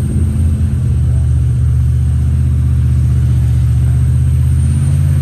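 Rock-crawling buggy's engine running under load as it crawls up a steep rocky climb: a steady, low engine note that hardly changes in pitch.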